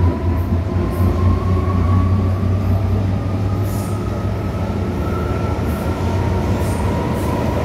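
Interior running noise of an MTR M-Train metro car under way, heard inside the passenger cabin: a steady low rumble with a motor whine that rises slowly in pitch and eases back slightly near the end. A few faint clicks come through over it.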